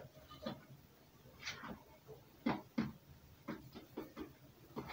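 Scattered soft knocks and scrapes of kitchen utensils: a spoon working in a plastic mixing bowl and a metal baking tin being handled as it is greased. There are about eight short strokes, spaced irregularly.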